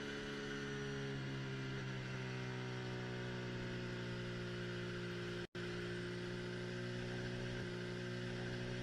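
Steady low hum made of several held tones that drift slightly in pitch, cut off for a split second about five and a half seconds in.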